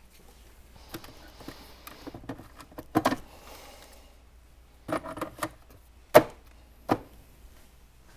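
Tools and wood being handled on a workbench: scattered clatter and knocks, with a cluster about three seconds in, another about five seconds in, and a single sharp knock about six seconds in followed by a lighter one.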